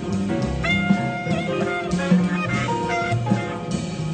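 Jazz quartet playing: tenor saxophone over piano, double bass and drums.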